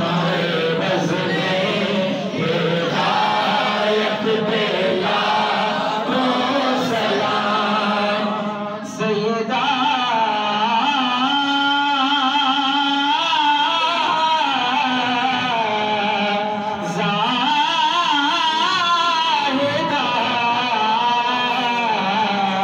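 Men chanting a devotional salam (durood-o-salam) without words spoken, a melodic line of long, wavering held notes. It drops briefly about nine seconds in, then resumes with long gliding phrases.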